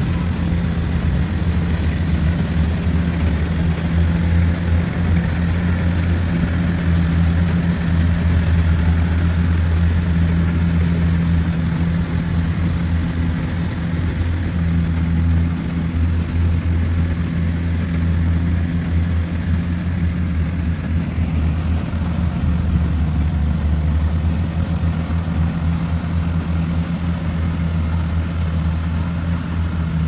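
Small tracked rice combine harvester working a paddy: its diesel engine runs steadily under load while cutting and threshing rice, a continuous low drone.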